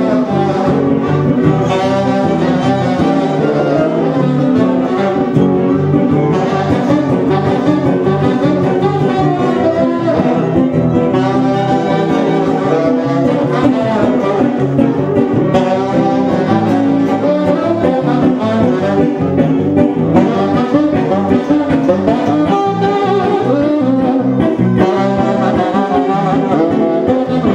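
Roma wedding-band music: a tenor saxophone playing with accordion and guitar accompaniment, continuous and lively throughout.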